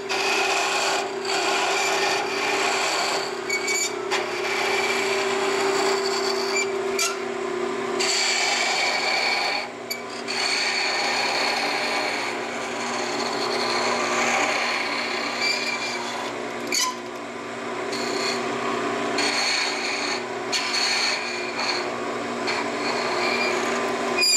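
Wood lathe with a Vega duplicator cutting a thin walnut spindle: the lathe's steady hum under the rasping hiss of the cutter taking slow, light cuts, the cutting noise easing off briefly several times as the cutter is fed along the part.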